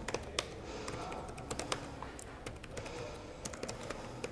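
Laptop keyboard typing: irregular, uneven keystrokes, thinning out briefly about halfway through.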